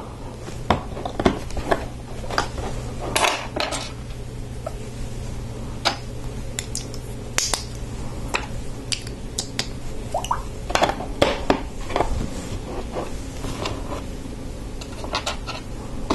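Small plastic Lego pieces clicking and clattering as they are picked from a pile and pressed together, in scattered sharp clicks.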